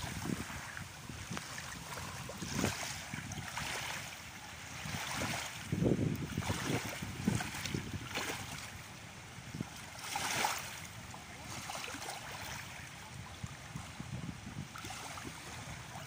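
Small, choppy waves lapping and washing up over sand and seaweed at the water's edge, swelling every second or two, with wind rumbling on the microphone.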